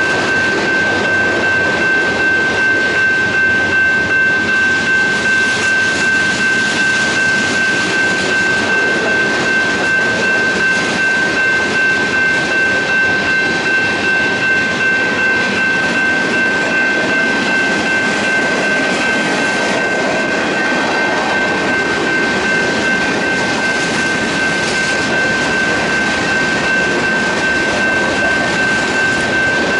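Freight cars of a BNSF mixed freight train rolling past at speed: a loud, steady rumble with a rhythmic clatter of wheels. A steady high-pitched tone sits over it.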